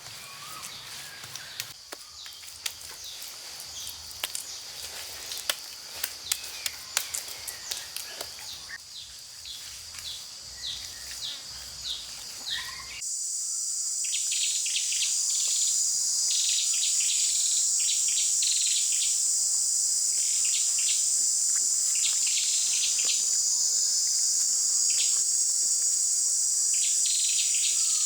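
Outdoor insect chorus with bird chirps: a steady high insect trill with scattered clicks and taps, then about halfway through a much louder, steady high insect drone takes over, with short chirps over it.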